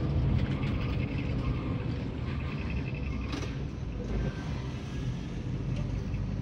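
Mercedes-Benz bus engine running, heard from inside the cabin as a steady low rumble, with light clicks and rattles over it.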